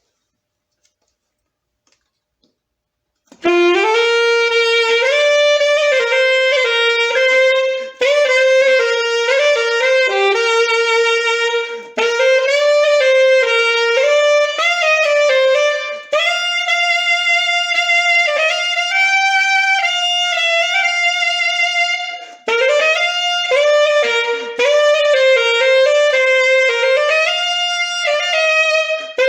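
Solo wind instrument playing a slow hymn melody, one note at a time in phrases of a few seconds with short breath-like breaks between them. It enters about three seconds in after near silence.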